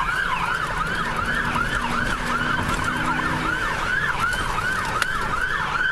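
Police car siren in fast yelp mode, its pitch sweeping up and down about three to four times a second, with engine and road rumble underneath.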